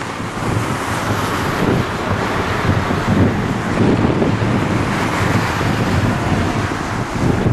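Jet engines of an Airbus A340-300, its four CFM56 turbofans at takeoff thrust during the takeoff roll. They make a loud, steady rushing noise, with wind buffeting the microphone underneath.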